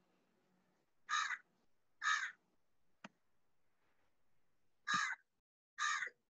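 A crow cawing: four harsh caws in two pairs, with a single sharp click between the pairs.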